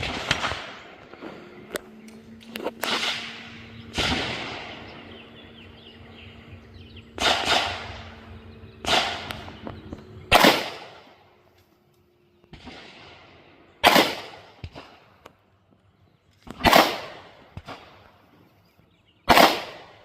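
Canik Prime pistol with a compensator and ported barrel being fired slowly, about nine single shots spaced one to three seconds apart, each with a short echo trailing off.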